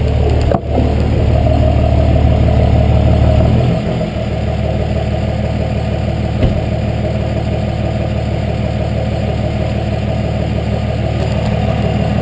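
Turbocharged 5.9 L Cummins inline-six diesel in a 2006 Dodge, breathing through a 5-inch turbo-back exhaust, running with a deep steady note. About four seconds in it drops to a quieter, even idle.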